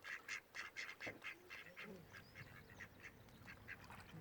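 Faint quacking of mallard ducks: a quick run of calls, about four a second, that fades out after about two seconds.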